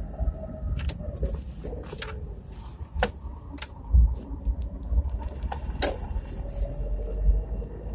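Chevrolet Niva driveline heard from inside the cabin while driving: a low running rumble with several sharp knocks and one dull thump about four seconds in, all muffled. These are the transmission knocks that remain after the intermediate shaft and left front driveshaft were replaced.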